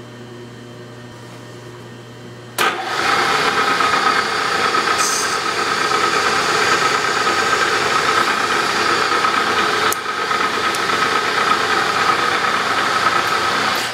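Bridgeport milling machine spindle running with a steady hum. About two and a half seconds in, a #21 twist drill, the tap drill for a 10-32 thread, starts cutting into the workpiece with a loud, steady cutting noise, which stops abruptly near the end.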